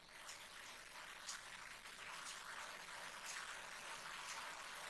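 Faint rustling and a few light plastic clicks as ink cartridges and their tubes are handled and lifted off an Epson L1455 printer's carriage.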